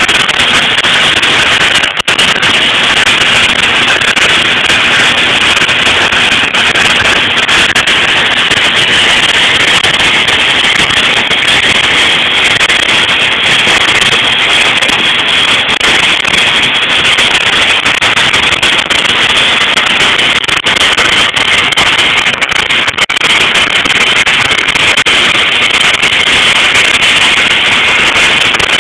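Oxy-fuel cutting torch cutting steel plate: a loud, steady hiss of the gas jet with scattered crackles.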